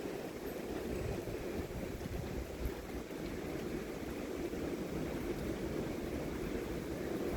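Strong thunderstorm wind blowing steadily, with low rumbling wind buffeting on the microphone.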